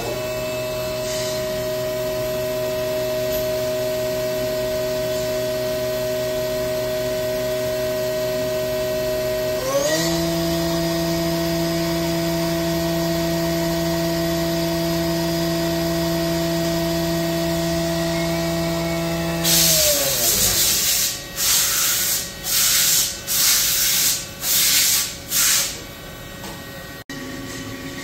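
Haas UMC 750 CNC machining center spindle running at a steady speed with a steady whine. About ten seconds in it shifts to a different speed, and near twenty seconds it spins down and stops. Then come about six short hisses of compressed air, roughly one a second.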